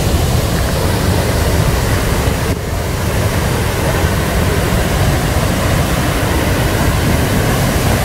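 The lower falls of the Brule River pouring heavily over rock: a loud, steady rush of water with a deep low rumble.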